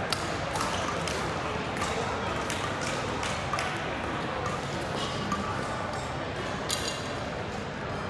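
Badminton rally: sharp cracks of rackets hitting a shuttlecock, irregularly spaced about every half second to a second, over a steady murmur of voices in the hall.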